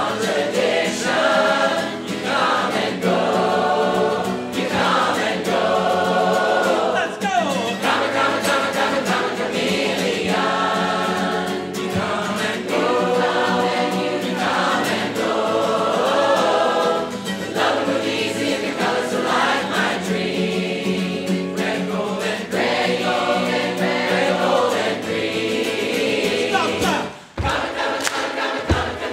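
A large mixed crowd of amateur men's, women's and children's voices singing together as a choir, in sustained phrases of about two seconds each with short breaks between them. The singing drops out for a moment near the end.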